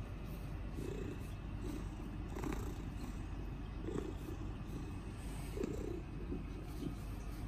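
A long-haired ginger Munchkin cat purring very loudly and steadily while being stroked, the purr a sign of contentment at the petting.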